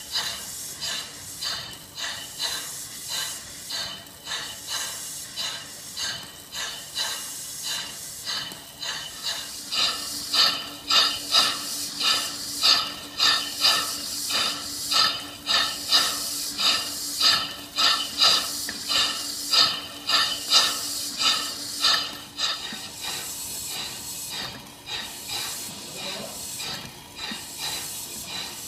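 Worthington Simpson steam-driven reciprocating boiler feed pump running, its steam exhaust puffing in an even rhythm of about one and a half strokes a second. The puffs grow louder from about ten seconds in and ease off again near the end.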